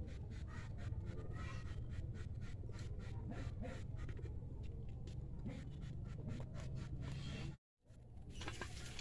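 Rustling and scratching from hands working among plants and soil, with many small clicks, over a steady low rumble. The sound cuts out briefly near the end.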